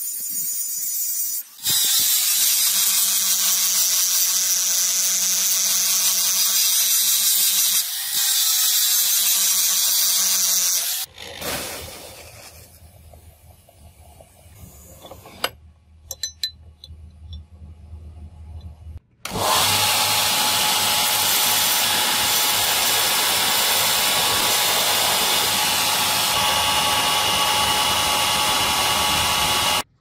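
Angle grinder grinding the edge of a steel knife blank, its motor whining steadily, with a brief dip about eight seconds in. About eleven seconds in this gives way to a low machine hum with a few light clicks. About nineteen seconds in, loud grinding of the steel starts again.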